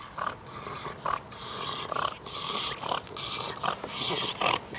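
Bulldog breathing noisily, a run of short, irregular rasping breaths.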